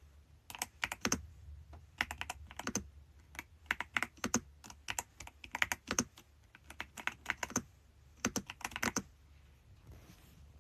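Typing on a YUNZII B75 Pro gasket-mounted mechanical keyboard: quick clusters of key clicks with short pauses between them, stopping about nine seconds in.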